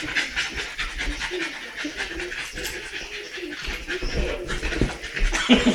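Two dogs, a Staffordshire bull terrier and a smaller white-and-tan dog, panting hard and snuffling in quick, irregular breaths as they wrestle in play.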